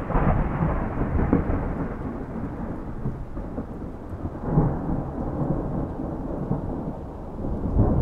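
Thunder rumbling continuously, with louder swells about four and a half seconds in and again near the end.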